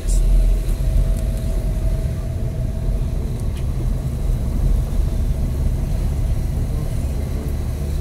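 Car driving along a street, heard from inside the cabin: a steady low rumble of engine and road.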